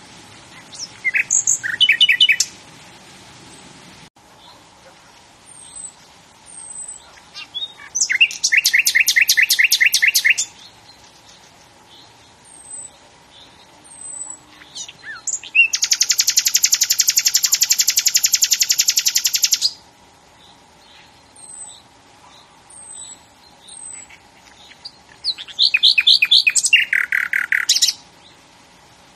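A bird singing in loud, rapid phrases, four times, the third a long dense trill of about four seconds, with short high chirps between the phrases.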